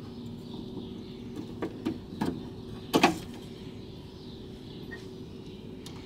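Light clicks and taps of a car door's interior handle and metal lock rod being handled, the sharpest about three seconds in, over a steady low hum.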